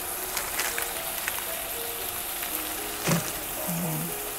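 Shrimp, garlic and onion sizzling steadily in oil in a frying pan, with small scattered pops.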